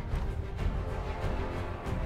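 Background music: held tones with occasional percussive hits.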